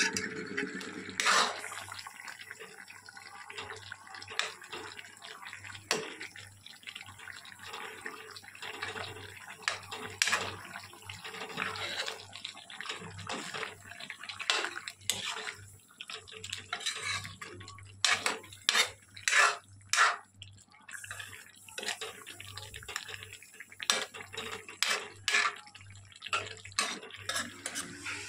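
A metal ladle stirring and scraping chicken and papaya pieces around an aluminium kadai of wet, simmering curry, with repeated clinks and splashy scrapes. A run of louder strokes comes about two-thirds of the way in.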